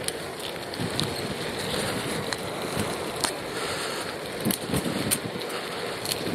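Steady wind rush on a cyclist's earpiece microphone while riding, with a few scattered sharp clicks.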